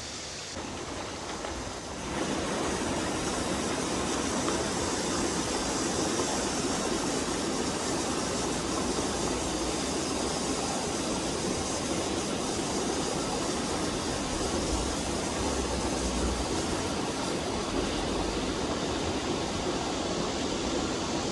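Stream water rushing over rocks, a steady rush that grows louder about two seconds in and then holds.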